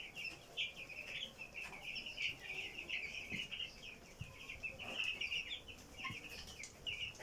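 Chickens calling continuously, a dense high-pitched chirping, with a few short sharp sounds scattered among the calls.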